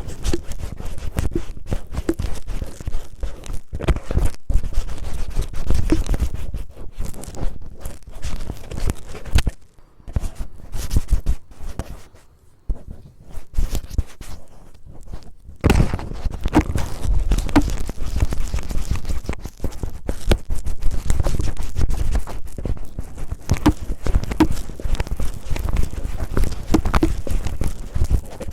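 Cellophane roughly crinkled and rubbed against an ASMR microphone, ear-cleaning style, giving dense crackling and scraping with a low rumble of handling. It eases off for a few seconds around the middle, then picks up again.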